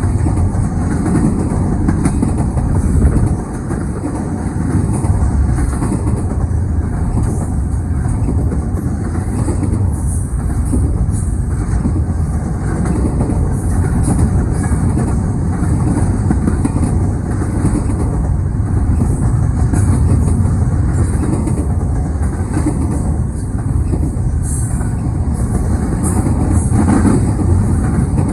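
CN freight train Z149's cars rolling past on the track, a loud, steady run of wheel-on-rail noise with no horn.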